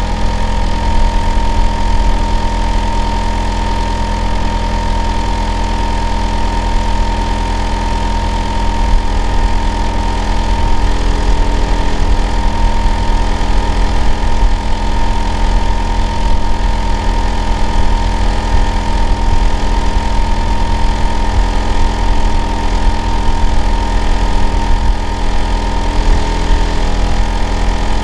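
Hitachi air-conditioner outdoor unit running steadily in winter, a loud, deep drone with a constant high whine over it; the uploader counts it as abnormal noise.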